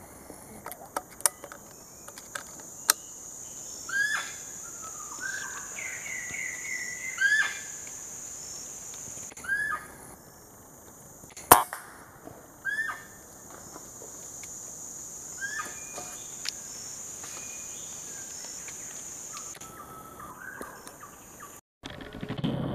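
A single rifle shot, one sharp crack about halfway through, that downs a green pigeon. Around it, a bird repeats a short call every few seconds over a steady high insect drone, with a few lighter clicks in the first three seconds.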